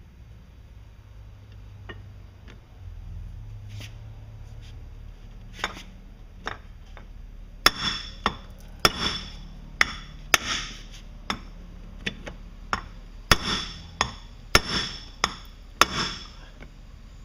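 Hammer striking a steel driver tool to drive the U-joint bellows sleeve into a MerCruiser Bravo sterndrive bell housing. A few light taps come first, then about a dozen sharp metallic blows, each ringing briefly.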